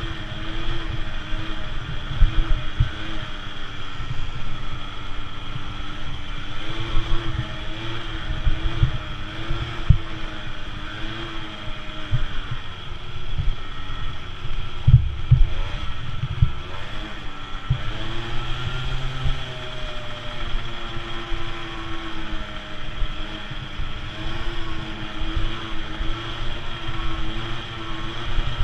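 Small 50–70cc dirt bike engine racing, its pitch rising and falling as it revs through the turns and straights, heard from on the bike with low thumps and buffeting mixed in.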